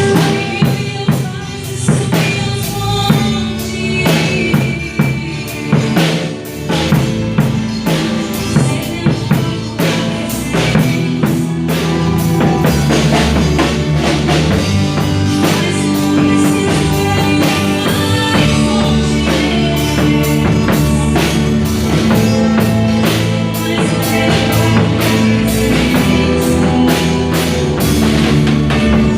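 Live band playing an instrumental passage: drum kit with kick, snare and rimshots over bass and sustained keyboard or guitar chords.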